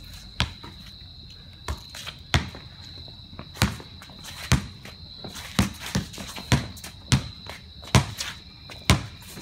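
Basketball dribbled on a concrete driveway: about a dozen sharp bounces at an uneven pace, coming faster in the middle, over a steady high-pitched buzz.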